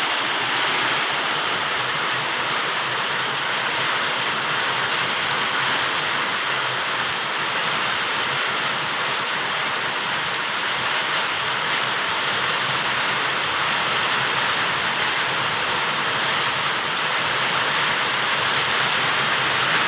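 Heavy rain falling steadily, a dense, even hiss with a few sharper taps of drops here and there.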